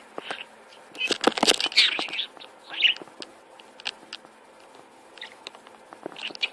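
A parrot chattering in short scratchy bursts, loudest about a second in and again shortly after, with scattered sharp clicks and taps in between.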